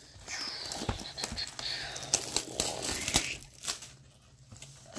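Plastic shrink-wrap being torn and crumpled off a cardboard hockey card hobby box, a crackly crinkling with many sharp clicks that dies down after about three seconds.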